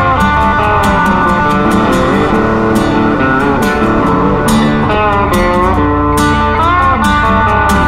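Background music: a guitar-led track with bending lead notes over a steady beat.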